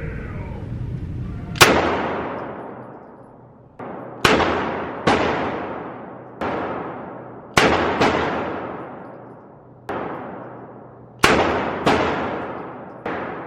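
Gunshots at a firing range: about eleven single shots fired at an uneven pace, some in quick pairs, each sharp crack followed by a long echoing decay.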